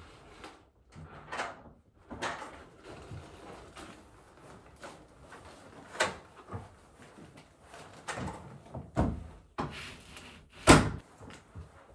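A series of irregular knocks and clatters, like doors or drawers being opened and shut, with the loudest, sharpest knock near the end.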